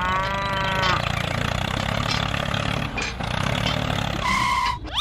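A cow moos briefly at the start, then a tractor engine runs with a steady low chug. Near the end a short steady beep sounds, followed by a quick rising whistle.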